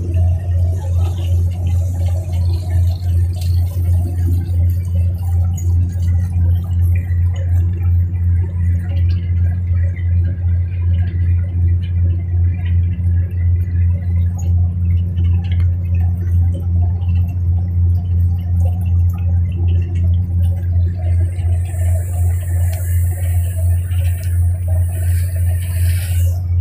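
Riverboat engine running steadily: a loud, low, evenly pulsing drone. A high hiss joins it near the end.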